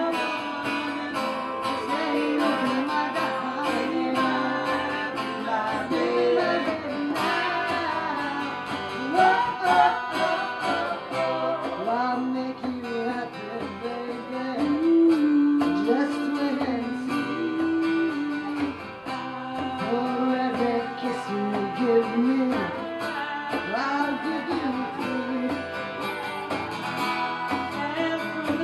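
Live band music: a woman singing lead over guitar and a hand drum keeping the beat.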